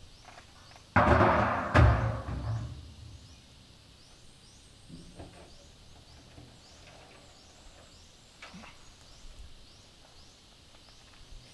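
Two loud, hollow bangs about a second apart near the start, each with a deep boom and a rattling crash, then a few faint knocks and scrapes. A high chirp repeats about twice a second in the background.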